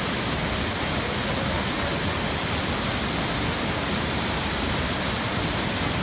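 Small waterfall cascading down a rock chute into a pool: a steady, even rush of falling water.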